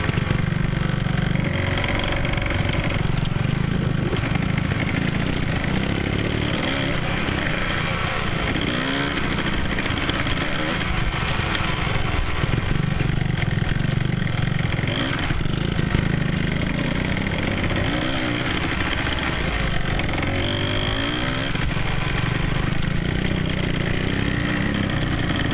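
Small off-road vehicle engine running while riding along, its revs rising and falling several times.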